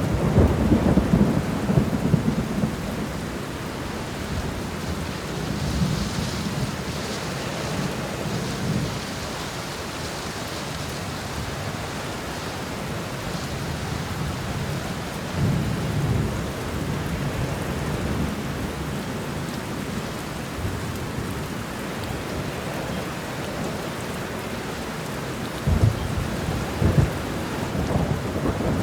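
Steady rain falling, with low rolling rumbles of thunder swelling near the start, about halfway through and again near the end.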